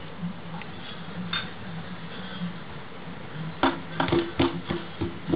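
A pigeon pecking at a window pane: a quick run of sharp taps on the glass starting a little over halfway through, over a faint low hum.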